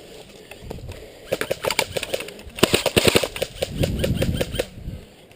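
Airsoft electric rifle, a VFC SCAR-L, firing rapid bursts of sharp clicks for a few seconds, starting about a second in and stopping shortly before the end.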